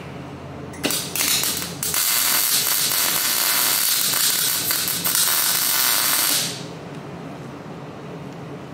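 Arc welding on the buggy's steel tube frame. A few short tack bursts come about a second in, then a steady hissing weld runs for about four and a half seconds and stops.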